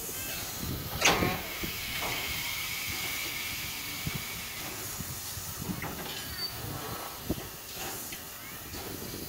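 Ty2 steam locomotive standing with steam hissing steadily, venting low around the cylinders. A sharp louder burst of steam comes about a second in.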